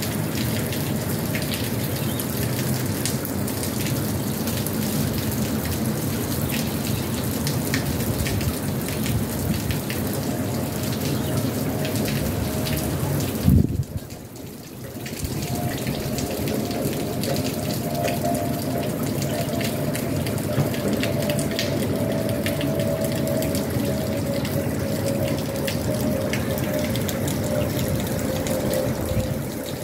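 Steady rain with scattered drips. Through it runs a faint jet airliner engine whine that slowly falls in pitch over the second half. There is a brief drop in the sound about halfway through.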